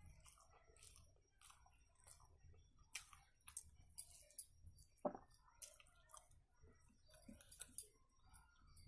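Quiet close-up eating sounds: scattered wet mouth clicks and chewing, with the soft squish of rice being mixed and gathered by hand on a plate.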